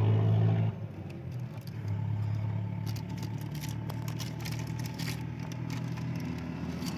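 Steady low hum of an engine idling, louder in the first second. A few light metallic clicks from about three seconds in as the brake master cylinder's piston and parts are pushed and handled.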